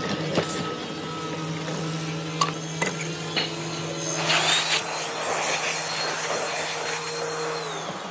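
An electric power tool's motor running steadily on wood, with scraping and a few sharp knocks. A higher whine joins about four seconds in and drops away near the end.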